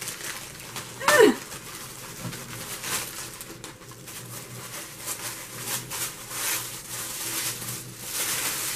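Plastic packaging bag and tissue paper crinkling and rustling as they are unwrapped by hand, in many short crackles. About a second in there is one short, loud call that slides down in pitch.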